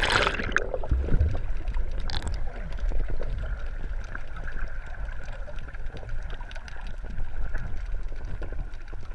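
Muffled underwater water noise picked up through a submerged action camera's housing: a low, steady rumble with small gurgles, after the tail of the splash as the camera goes under in the first half-second.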